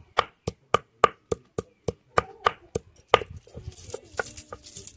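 Food being chopped with a blade on a hard surface: rapid, even strokes about three to four a second that stop about three seconds in. A faint crackling hiss follows.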